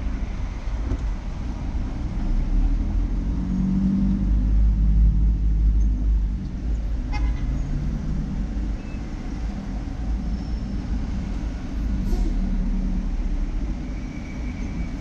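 Low, steady rumble of a car's engine and road noise heard from inside the cabin, moving slowly in heavy city traffic.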